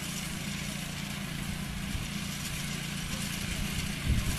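An engine running steadily at constant speed under a steady hiss, growing louder in the low end near the end.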